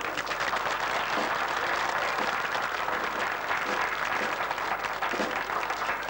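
Crowd applauding, a steady clapping that holds at an even level.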